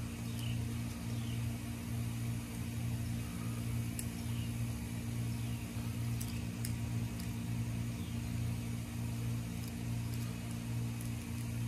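A steady mechanical hum, as from a motor or fan running. A few faint small clicks come about four seconds in and again around six to seven seconds, from a screwdriver tightening the knife's scale screws.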